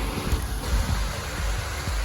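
Wind buffeting the microphone in an uneven low rumble, with faint background music under it.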